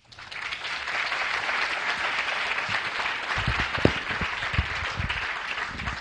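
Audience applauding, a dense patter of many hands clapping that starts suddenly and begins to thin near the end. Partway through come a few low thumps from the microphone being handled.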